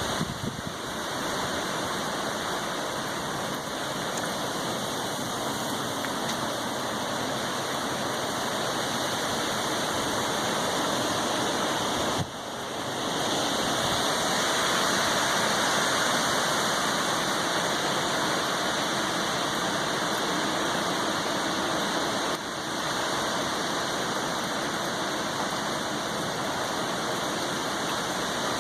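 Heavy hurricane rain pouring down, a steady rushing noise that briefly drops twice.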